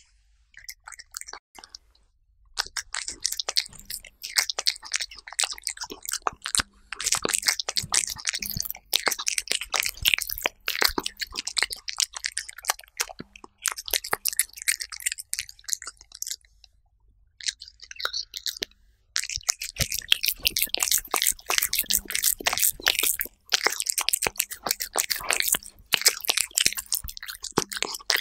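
A cat eating soft chicken-breast puree close to the microphone: wet chewing and mouth smacks in quick runs of clicks, broken by short pauses.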